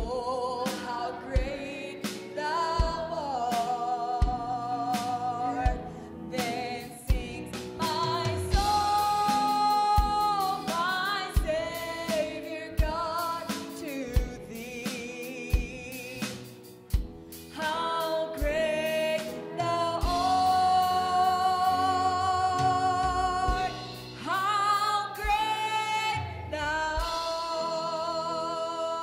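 A woman singing a gospel hymn with long held, wavering notes, backed by a live band of piano, acoustic guitar, electric bass and drum kit keeping a steady beat.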